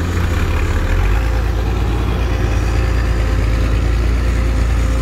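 Isuzu 6BG1 six-cylinder diesel engine of an XCMG XE215C crawler excavator running steadily, heard close up. Its low note shifts about a second in.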